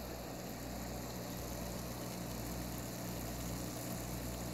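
Steady low mechanical hum with a faint hiss, from the aquarium's running equipment.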